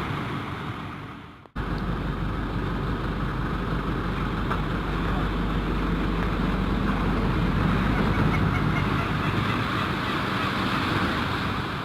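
Strong hurricane wind blowing steadily as a rushing noise heavy in the low end. It drops out briefly about a second and a half in, then resumes just as steadily.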